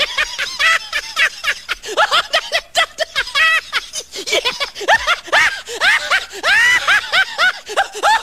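A fast run of short, high-pitched cackling laughs, several a second, each one rising and falling in pitch.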